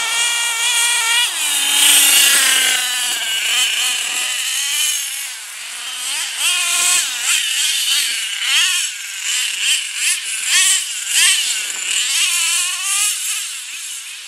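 HPI F4.6 two-stroke nitro engine of a radio-controlled T-Maxx monster truck revving up and down as it is driven, a high buzzing whine whose pitch rises and falls over and over. It grows fainter near the end as the truck drives away.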